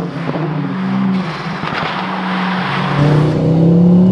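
Stage 3 hybrid-turbo Mk2 Ford Focus ST's five-cylinder engine and exhaust, with some crackling in the first second, then the engine note rising as the car accelerates about three seconds in.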